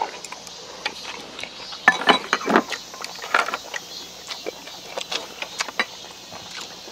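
Eating at a shared table: scattered light clicks and clinks of chopsticks and tongs against bowls and dishes, with a few louder ones about two seconds in.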